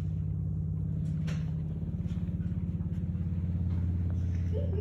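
A low, steady motor rumble with a fast, even throb.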